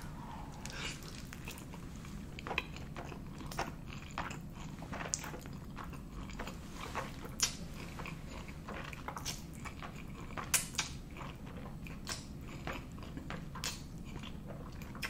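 Close-miked eating sounds: a mouthful of spaghetti carbonara being chewed, with many small, irregular wet mouth clicks.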